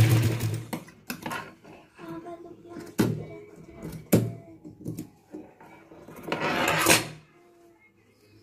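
A domestic sewing machine stitching, stopping within the first second. Then come scattered sharp clicks and snips from tailor's shears trimming the seam and metal parts being handled, and a short rustle of cloth about six seconds in.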